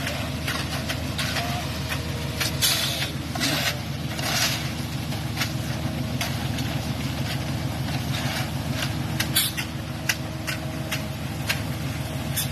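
A truck engine idling steadily, with short scrapes and knocks on top several times.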